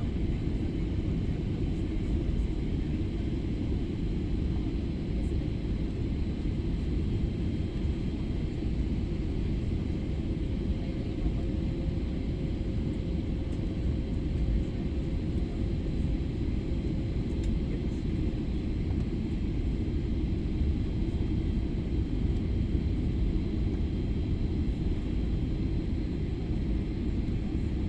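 Airliner cabin noise: the steady low rumble of the jet engines and airflow heard from a passenger seat, with a faint steady tone in the middle of it.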